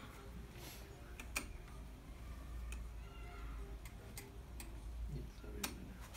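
Scattered light clicks and taps, about eight at an uneven pace, over a faint low hum, as hands handle parts on top of an idle Zoje industrial lockstitch sewing machine.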